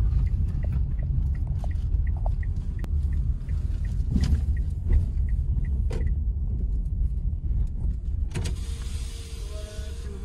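Car driving slowly, heard from inside the cabin: a steady low rumble, with light regular ticking about three times a second through the first half. About eight seconds in, a hiss with a faint steady hum sets in.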